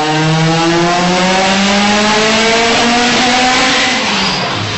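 Mitsubishi Lancer Evolution's turbocharged four-cylinder engine at full throttle on a chassis dynamometer, revs climbing steadily through a dyno pull; near the end the revs fall away sharply.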